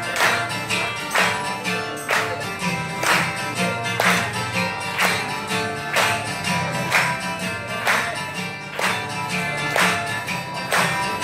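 Live acoustic guitars strumming chords, with a sharp percussive accent about once a second.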